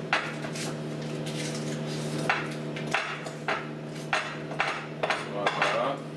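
Butter being rubbed over the bottom of a glass Pyrex baking dish, with irregular light knocks and scrapes of glass as the dish is handled on a stone counter, over a steady low hum.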